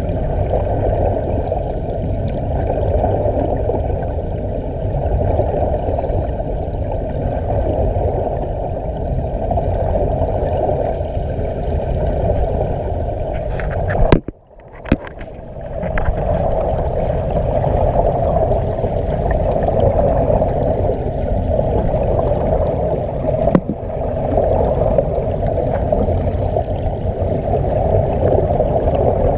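Steady, muffled underwater rush and bubbling of air escaping from SeaVenture diving helmets. It drops out briefly about halfway through.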